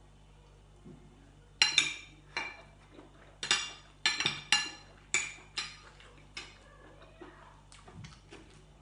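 A metal spoon clinking and scraping in a glass jar of chili dipping sauce: about ten sharp, ringing clinks in quick succession over several seconds, then a few faint taps near the end.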